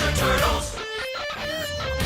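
Music sound effect: guitar chords for the first moment, then a pitched melody line that wobbles up and down in pitch to the end.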